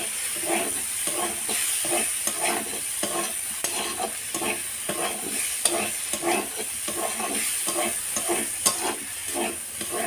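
Prawns and okra frying in oil in a kadai while a flat metal spatula stirs and scrapes them, about two strokes a second, over a steady sizzle.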